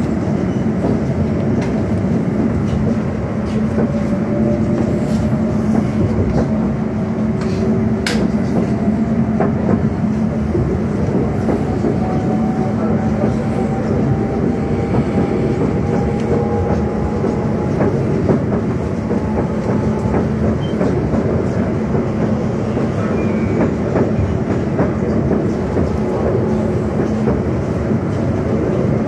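Inside a London Overground Class 710 electric train under way: a steady rumble of wheels on the track, with the motors' whine slowly rising in pitch as the train gathers speed. There is a single sharp click about eight seconds in.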